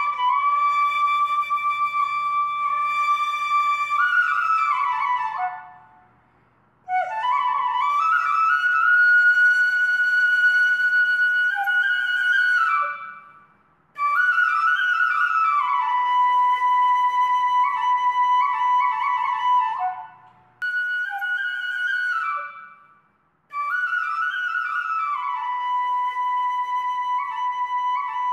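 Background music: a solo flute playing a slow melody of long held notes, in phrases of several seconds with short breaks between them.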